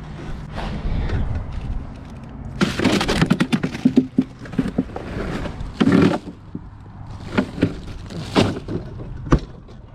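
Crinkling and crackling of a plastic bag of ice, with knocks and thunks against a plastic cooler as a fish is put on ice. A burst of crackling comes about two and a half seconds in, then a few separate thunks, the loudest about six seconds in.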